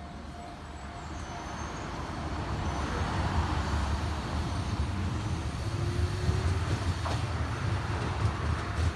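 Sanyo 6000 series electric train starting away from the platform. A low rumble grows louder over the first few seconds and then holds, and a faint motor whine rises slowly in pitch as it gathers speed.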